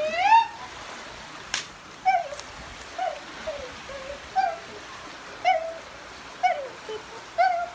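Short pitched animal calls repeated roughly once a second, each dipping slightly in pitch, over the steady trickle of a shallow stream. A single sharp click comes about a second and a half in.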